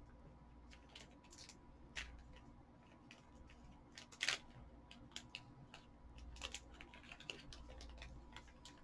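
Faint scattered clicks and crinkles of a snack bag being handled, with two sharper crackles about two and four seconds in.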